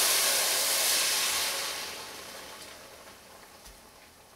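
Tomato juice poured into hot oil and softened onions, hissing loudly as it hits the pan, then fading away over the next few seconds as the liquid cools the pot.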